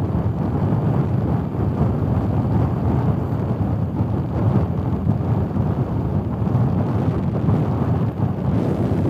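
Steady low wind rumble on a helmet camera's microphone while riding a BMW R 1250 GS Adventure motorcycle along a gravel road, with the bike's engine and tyre noise mixed in.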